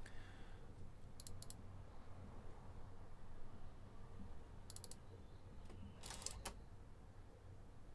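Short clusters of sharp clicks about a second in, near five seconds and a louder one around six seconds: mouse clicks switching relays on a three-relay Raspberry Pi relay board on one by one, with the relays clicking over.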